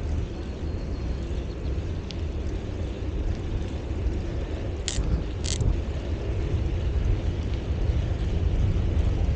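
Wind rumbling on the camera microphone while cycling, a steady deep buffeting that grows slightly louder toward the end. Two short high-pitched sounds come about five seconds in.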